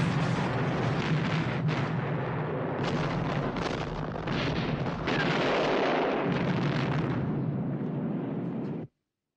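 Fuel tanks exploding and burning: a continuous blast with repeated sharp bangs and crackling, and a fresh surge about five seconds in. It cuts off abruptly near the end.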